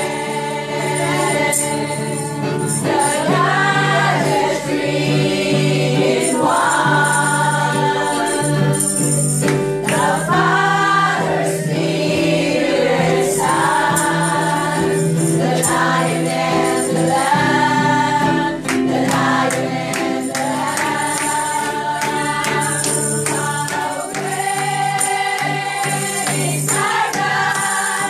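Live gospel praise singing: a woman's lead vocal through a microphone with other voices singing along, over a steady instrumental accompaniment, with a tambourine shaking.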